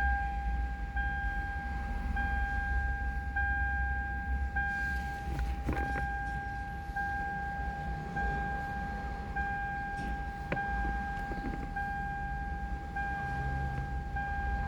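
Electronic warning chime repeating steadily, a long beep about every 1.2 seconds with a short gap between, over a low rumble; a couple of sharp clicks about six and ten seconds in.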